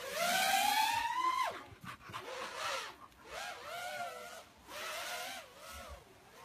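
FPV racing quadcopter's brushless motors and propellers whining under throttle. The pitch climbs for about a second and a half, then drops away, followed by several shorter rise-and-fall throttle blips.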